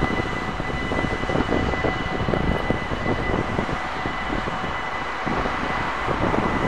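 Dutch level-crossing warning bell ringing steadily as the barriers come down for an approaching train, with wind rumbling on the microphone.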